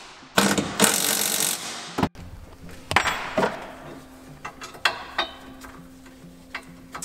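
Hand ratchet wrench tightening the bolts of a roll-cage bar: two quick runs of ratcheting in the first two seconds, then scattered metal clicks and knocks as the bar and fasteners are handled.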